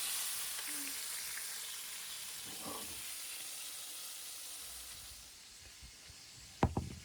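Flour-dusted fish frying in hot oil, a steady sizzle that dies down about five seconds in. A couple of sharp clicks come near the end.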